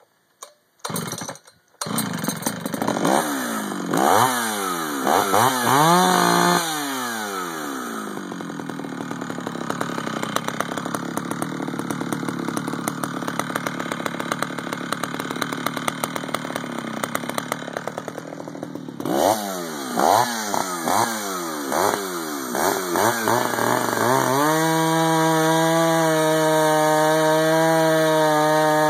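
Ported two-stroke chainsaw built from a Homelite 8800 top end on a Homelite 540 case, starting up about two seconds in and revved in a few quick blips. It then idles for about ten seconds, is blipped again, and near the end runs at steady full throttle as it cuts into a log round.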